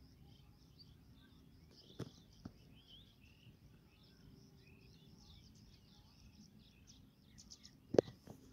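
Faint chirping of small birds over a low background hiss, with two soft knocks about two seconds in and a sharper knock near the end.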